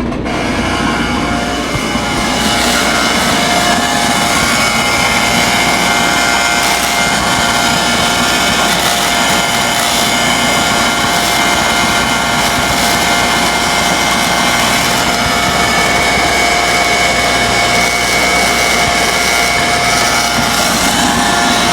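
Homemade Tesla magnifying transmitter running, its belt-driven spark gap firing continuously: a loud, steady buzz with a few held tones, building up over the first couple of seconds after the switch is thrown.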